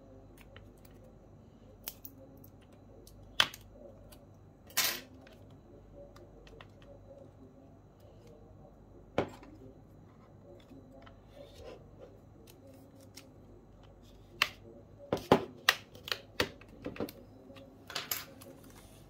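Scattered sharp clicks and snaps of a keyboard case being taken apart with small tools. There are a few single clicks at first, then a quick run of them in the last few seconds.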